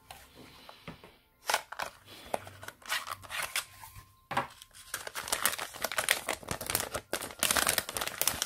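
Plastic packaging bag crinkling and crackling as it is handled and pulled off a replacement phone screen assembly, starting about one and a half seconds in and growing denser and louder in the second half.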